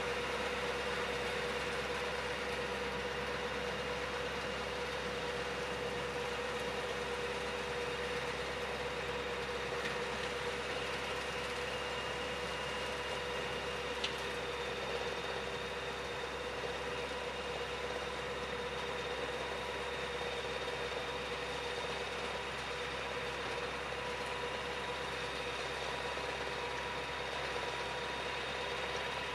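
Distant farm tractor engine running at a steady speed as it pulls a field implement across tilled ground: an even drone with a steady hum. One sharp click about halfway through.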